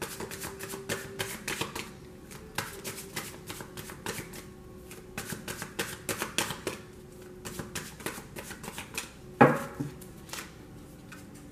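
A tarot deck being shuffled by hand: a quick, uneven run of soft card flicks and riffles, thinning out, with one sharper card snap a little over nine seconds in.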